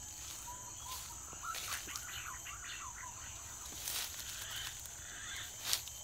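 A bird calling, a run of short wavering whistled notes from about half a second to three seconds in, over a steady high hiss. A few soft rustles and knocks follow, like foliage being pushed through.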